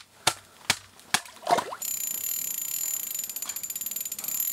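A few sharp clicks and knocks of handling gear at the ice hole. Then, about two seconds in, a spinning reel starts being cranked to bring in a hooked trout: a rapid fine ticking with a steady high whine.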